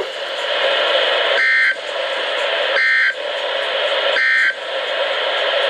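Three short warbling data bursts of the SAME (Specific Area Message Encoding) end-of-message code from NOAA Weather Radio, each about a third of a second long and evenly spaced about 1.4 s apart, over steady radio hiss. The bursts signal the end of the broadcast message, here the Required Weekly Test.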